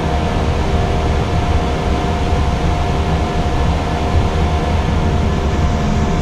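Steady flight-deck noise of an Airbus A320 in the climb after takeoff: a constant rush of airflow over a low rumble, with a few faint steady hums running through it.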